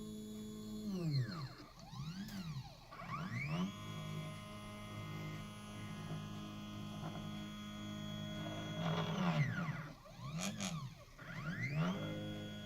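Mini CNC machine's stepper motors whining as the axes move, the pitch sweeping up, holding and sweeping back down with each move as it speeds up and slows down. There is one long steady run in the middle and several short quick sweeps before and after it.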